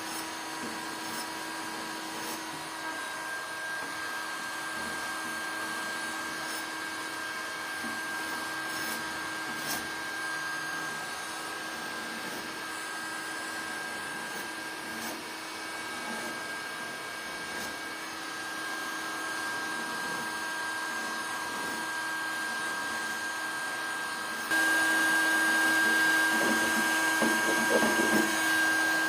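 Small electric blower motor running steadily with a constant whine, getting suddenly louder about 24 seconds in.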